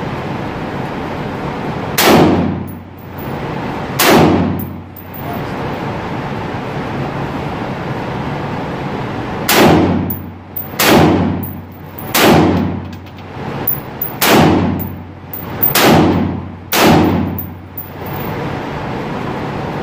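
Gunshots from a firearm on an indoor range, each ringing and echoing briefly off the walls: two shots about two seconds apart, then after a pause of about five seconds a string of six more, one every second or two.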